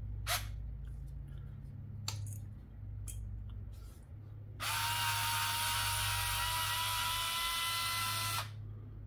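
Fanttik cordless electric screwdriver running on its lowest torque setting, a steady motor whine lasting about four seconds, starting about halfway through and cutting off sharply, as it backs out a screw thought to have had Loctite on it. A few light clicks of handling come before it.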